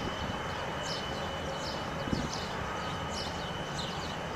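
Open-air ambience: a steady low rumble and hiss with a thin steady high whine, and short high bird chirps scattered throughout from the trees below.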